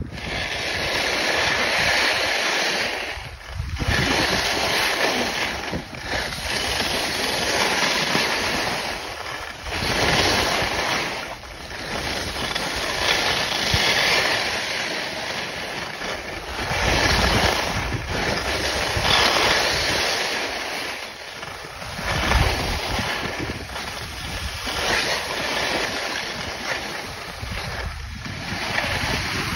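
Skis carving and scraping over packed, groomed snow through a run of turns, the hiss swelling and fading every couple of seconds. Wind rushes over the microphone.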